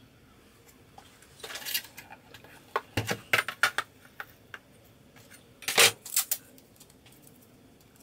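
Scattered light clicks and taps of small objects being handled and set down on a workbench, with a louder knock about six seconds in.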